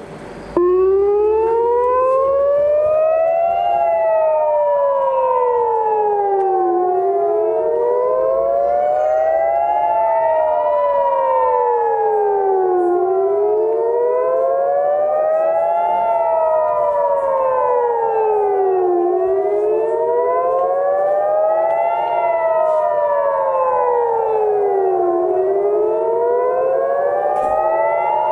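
Civil defense air-raid sirens sounding a rocket-attack warning, starting abruptly and wailing up and down in pitch, each rise and fall taking about six seconds. Two sirens overlap slightly out of step.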